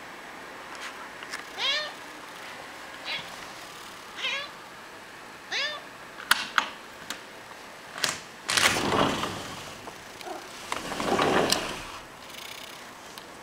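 Domestic cat meowing: four short meows, each rising and falling in pitch, in the first six seconds. A few sharp clicks and two longer rustling noises, around nine and eleven seconds in, follow.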